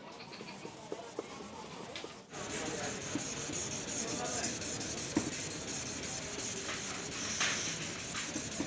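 Hand scrubbing and rubbing on the plastic lens of a fogged car headlight: first a small sanding pad scrubbing the surface, then, from about two seconds in, a palm rubbing across the lens over a steadier background noise.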